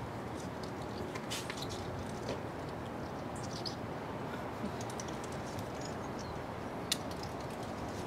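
Steady outdoor background hiss with faint, scattered high chirps and ticks, and a single sharp click about seven seconds in.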